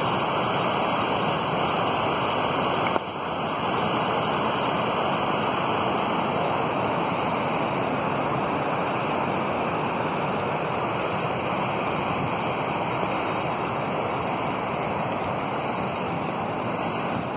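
Steady rushing of a mountain stream over stones, an even noise that dips briefly about three seconds in.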